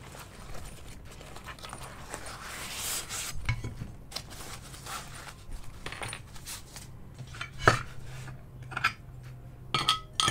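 Rustling of a nylon carrying case being opened, then cast iron pans and a metal handle knocking and clinking as they are taken out and set down on a desk mat; the loudest knock comes about two-thirds of the way in, with several more near the end.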